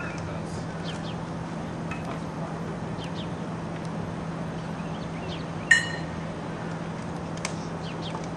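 Steady low hum with faint, scattered bird chirps, and one sharp metallic clink with a brief ring a little past halfway, as metal camera-rig hardware on the truck's hood mount is handled.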